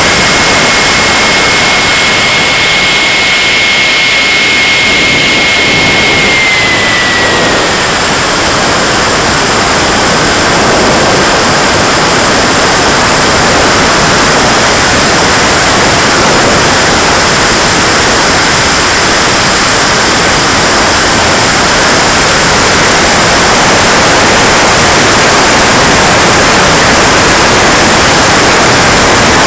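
KingTech K80 model jet turbine running with a loud rushing noise and a high steady whine; the whine drops in pitch about six to seven seconds in and carries on fainter.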